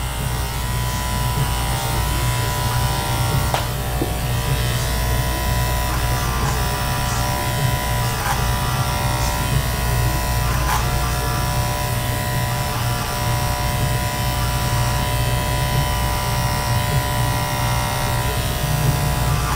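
Cordless electric hair clippers running steadily as they cut through long, thick hair, a constant motor buzz.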